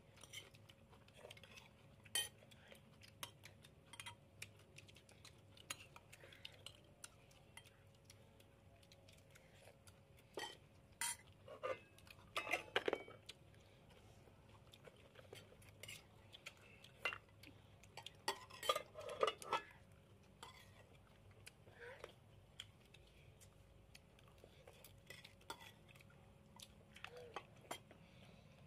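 Metal spoons clinking and scraping against ceramic plates and bowls during a meal. Scattered light taps, with louder clusters of clinks about halfway through and again about two-thirds of the way.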